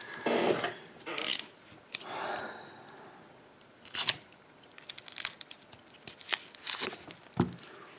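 Metal keys handled against the Sargent pin-tumbler lock, making scattered clicks and scrapes.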